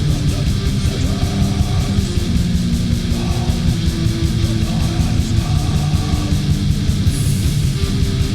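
War metal: distorted electric guitars over fast, relentless drumming, played steadily and loud.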